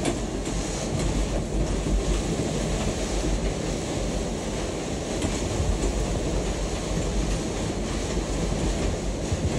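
Storm wind of about 50 knots blowing over a sailboat, heard from inside its cabin: a steady deep rumble that swells a little with the gusts, with a few faint knocks.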